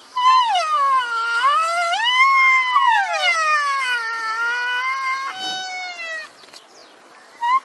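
Rhinoceros calling: one long, high-pitched wavering call that rises and falls in pitch for about five seconds, then a shorter call falling in pitch, and another call starting near the end.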